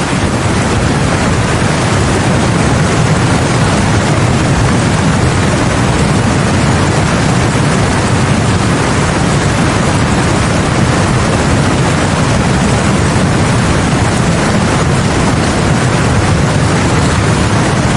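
Swollen river in flood, a steady loud roar of rushing floodwater.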